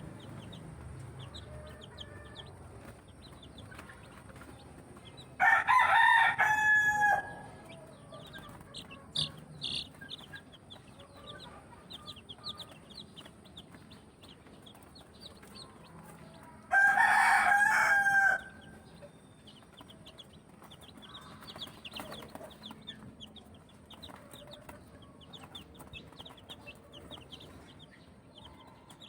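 A rooster crowing twice, each crow about a second and a half long, over constant rapid high peeping of young chicks.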